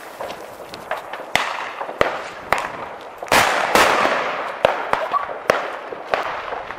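Fireworks and firecrackers going off: a string of sharp bangs at irregular intervals, the loudest several close together about halfway through.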